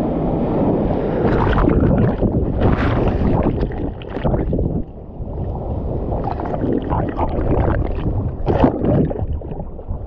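Shallow surf washing around a microphone held at the waterline: foamy breaking waves churning and splashing, over a rumble of water and wind noise. The loudest splashes come about three seconds in and near the end, with a short lull just before the middle.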